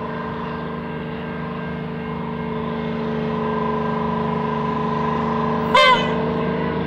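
Victorian Railways diesel-electric rail motor 58RM approaching, its GM 6-71 diesel engine running with a steady drone that grows louder as it nears. A short, loud pitched blast sounds near the end.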